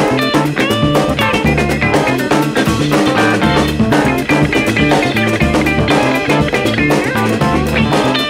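Background music: rock-style track with electric guitar, bass and a drum kit keeping a steady beat.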